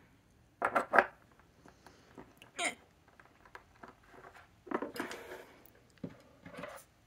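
Handling a small plastic ink sample vial as it is uncapped and set into a holder on a table: two sharp clicks about a second in, a short rising squeak, then rustling and a few lighter knocks.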